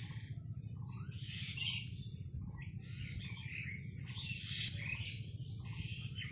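Small birds chirping, many short calls overlapping throughout, over a steady low background hum.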